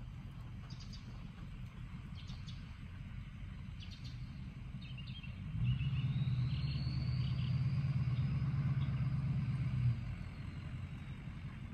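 A low outdoor rumble with short bird chirps, then a louder steady engine-like hum that comes in about halfway and cuts off sharply some four seconds later.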